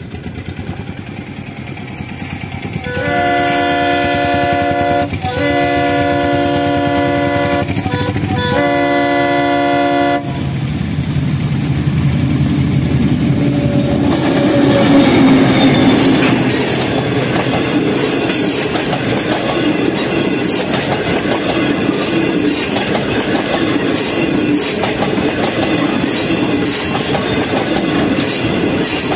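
DF7G-C diesel-electric locomotive approaching and sounding its multi-tone horn in four blasts, long, long, short, long: the road-crossing warning signal. Its diesel engine then passes close by, loudest about fifteen seconds in, followed by the passenger coaches' wheels clicking over the rail joints.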